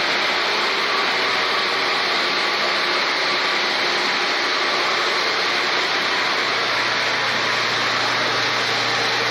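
Steady hissing machinery noise of a running tortilla chip production line, with its fryer and mesh conveyors, and a faint low hum coming in about seven seconds in.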